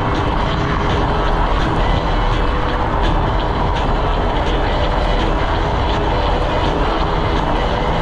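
Vehicle engine running steadily at speed over snow-covered ice, a loud, even drone with no let-up.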